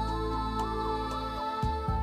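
Soft background music with sustained tones and a steady bass.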